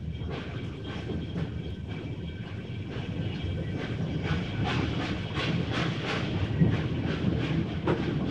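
Early-1900s steam locomotive chuffing over a steady rumble, the exhaust beats coming faster and louder as it picks up speed.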